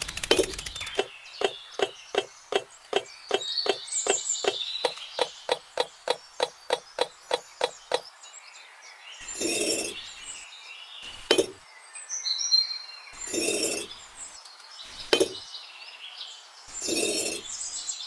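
A rapid series of light, woody taps, about three a second, for the first eight seconds. Then a handful of separate knocks and scrapes about two seconds apart, with faint bird chirps.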